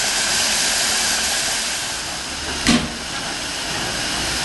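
Small steam tank locomotive standing with a steady hiss of escaping steam, and one short, sharp burst about two and a half seconds in.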